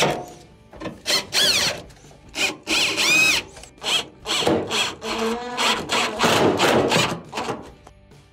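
Cordless drill-driver with a Phillips bit driving screws back into the dryer's door hinge, running in several short bursts with its motor whine rising and falling.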